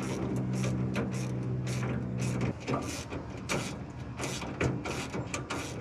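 Hand ratchet wrench clicking in quick strokes as bolts on a truck bed rack are tightened. A steady low hum runs underneath and cuts off about two and a half seconds in.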